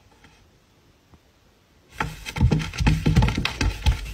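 A cat lunging and scrambling on a wooden shelf: quiet at first, then about two seconds in a sudden loud clatter of knocks and scrapes against the wood.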